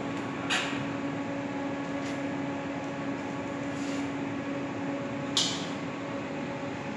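Steady mechanical hum of workshop machinery with a low droning tone, broken twice by a short sharp hiss, about half a second in and again near five and a half seconds.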